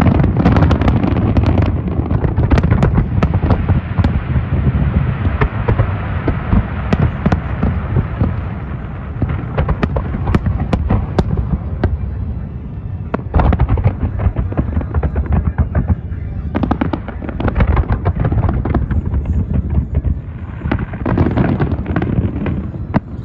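Large fireworks display: many aerial shells bursting in quick, overlapping succession, with a haze of crackle between the bangs. It is heaviest at the start, eases off about halfway and builds again near the end.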